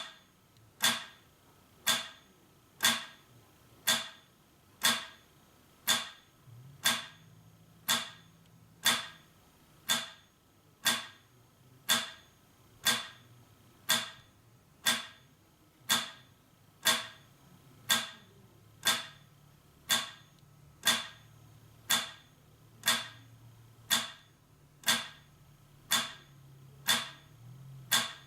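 Metronome ticking steadily at 60 beats per minute, one sharp click every second.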